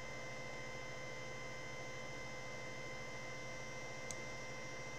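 Steady electrical hum with a faint hiss, holding several fixed pitches, and a single short click about four seconds in.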